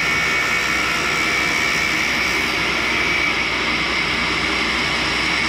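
Cincinnati universal tool and cutter grinder cutting a carbide bar with a thin cutoff wheel: a steady grinding hiss with a steady whine over it.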